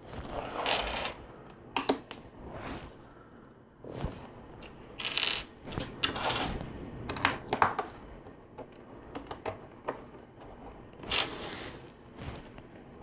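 LEGO plastic bricks and pieces being handled, pried off and pressed back on: irregular sharp clicks, snaps and short rattly scrapes of plastic.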